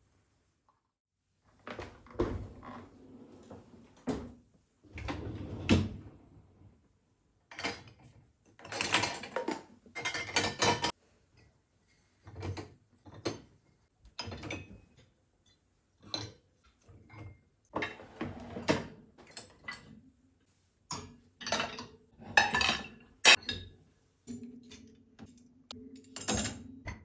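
Dishes and utensils being handled: irregular short clinks and knocks with brief pauses between them.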